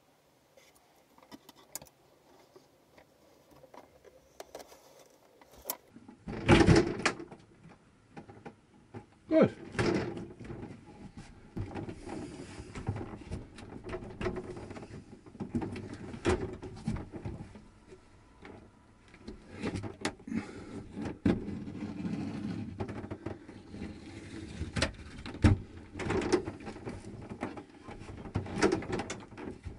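Faint scratching at first, then irregular knocks, bumps and rattles as a shower cubicle's wall panel is worked loose and handled after its silicone joint has been cut out.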